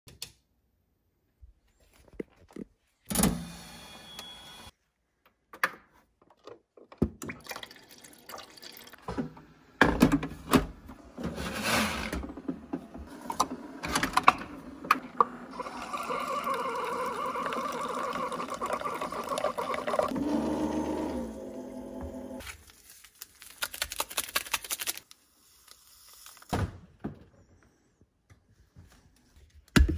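Single-serve pod coffee maker brewing: a steady run of hissing and trickling lasting several seconds, among scattered clicks and knocks from handling things in the kitchen.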